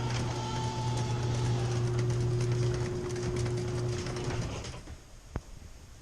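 Garage door opener motor running with a steady hum while the door moves, with many small rattling clicks; it stops about four and a half seconds in, and a single sharp click follows about a second later.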